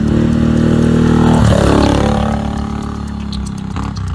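A quad bike's engine running as the ATV drives past and away. It is loudest a second or two in, where its pitch drops as it goes by, then fades.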